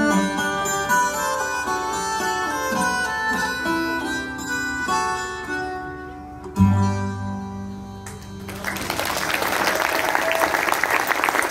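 Live band music playing the last bars of a dance song and ending on a held final chord about six and a half seconds in. The audience then breaks into applause, which carries on to the end.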